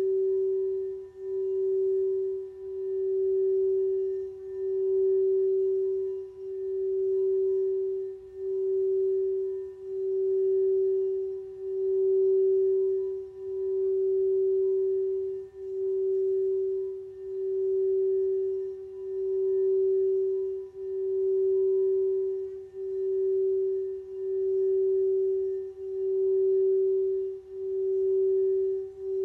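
Singing bowl holding one sustained note with a few faint overtones. The note swells and dips in a slow, regular pulse about every two seconds.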